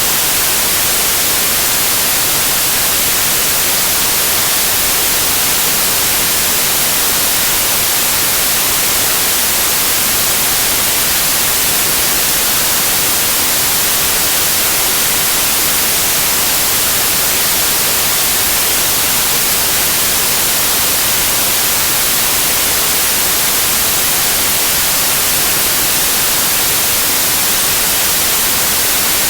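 Steady white noise like TV static: an even, unchanging hiss, strongest in the high end.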